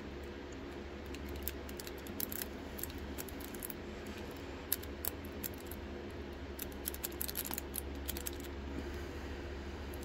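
Lock pick and tension wrench working in a lock's keyway: scattered light metal ticks and scrapes, bunched around two seconds in and again around seven seconds in, over a steady low hum.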